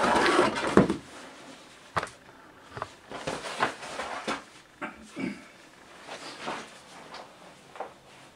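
Handling noises as hardcover books are moved about: a burst of rustling at the start, a sharp knock about two seconds in, then scattered light taps and rustles.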